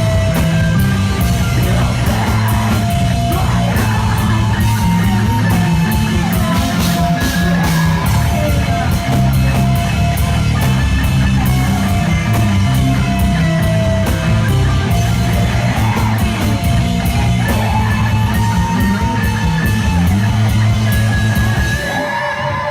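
A rock band playing loud and full through a live venue's sound system, with electric guitars over driving bass and drums. Near the end the drums and bass drop out, leaving a guitar ringing on its own.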